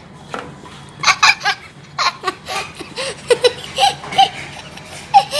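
A young child laughing in a string of short, high-pitched giggles, starting about a second in, with one more near the end.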